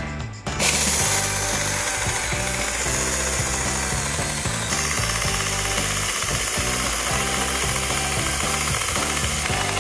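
TEETOK cordless mini chainsaw, running on an 18V Makita-compatible battery, cutting into a thick, dense tree stump, starting about half a second in and running steadily. The saw takes small bites from the edge of the stump, since cutting through the dense middle stalls it.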